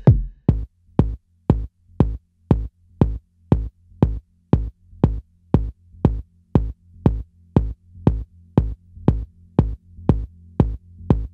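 Electronic background music with a steady kick drum at about two beats a second; a low bass line fills in a few seconds in.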